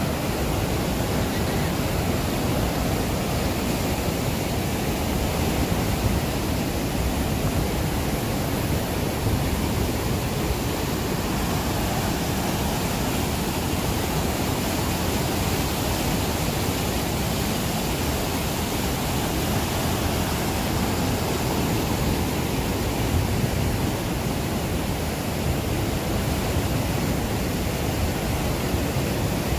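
Mistaya River whitewater rushing steadily through a narrow limestone canyon and over rapids.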